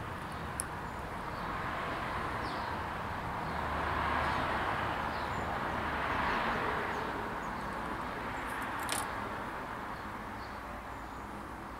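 Outdoor background noise: a broad rushing sound that swells through the middle and fades again, with a few faint bird chirps and two small clicks, one just after the start and one near the end.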